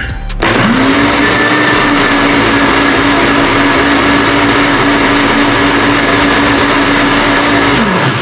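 Countertop blender with a plastic jug blending tomato juice: the motor spins up about half a second in, runs at a steady high speed with the liquid churning, then winds down with a falling pitch just before the end.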